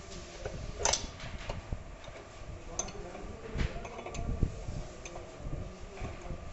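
Scattered sharp metal clicks and light knocks as a printing plate and its clamp are handled on an offset press's plate cylinder. The sharpest click comes about a second in.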